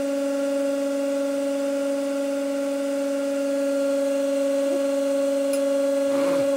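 Hydraulic press pump running with a steady two-tone hum as the ram keeps loading a 3D-printed stainless-steel bicycle crank arm.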